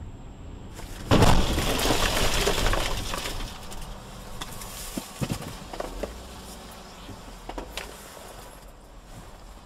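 A sudden loud crash about a second in, with a rattling, breaking sound that fades over about two seconds, followed by scattered sharp clinks and knocks.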